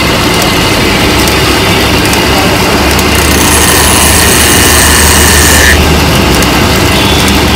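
Wood lathe running, spinning a wooden workpiece, with a steady low hum under a dense mechanical noise. A harsher hissing layer comes in about three seconds in and stops suddenly just before six seconds.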